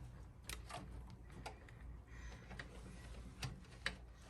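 Faint, scattered clicks and light taps of parts and tools being handled at the back of a refrigerator during disassembly, over a low steady hum.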